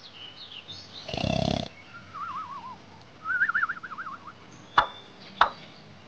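Young monkey vocalizing: a short harsh cry about a second in, then two wavering, warbling squeals. Two sharp clicks follow near the end.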